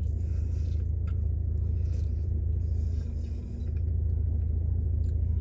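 Steady low rumble of a car engine idling, heard from inside the cabin, with faint chewing.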